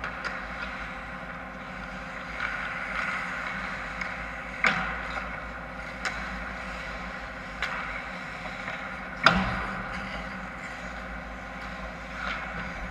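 Ice-hockey play in an indoor rink: a steady hum with scattered sharp clacks of sticks and puck, the loudest, with an echo, about nine seconds in.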